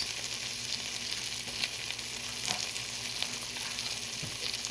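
Chaffle filling of cheese, cream cheese, jalapeños and sausage sizzling inside a closed Dash mini waffle maker: a steady hiss with small crackles and pops.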